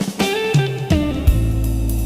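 Background music: electric guitar notes over a held bass line, with drums.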